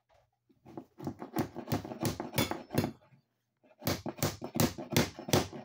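Hammer driving a steel nail-protection plate onto the wooden sill plate over the cable, to keep nails from hitting the wire. Two runs of quick blows, about three a second, with a short pause in the middle.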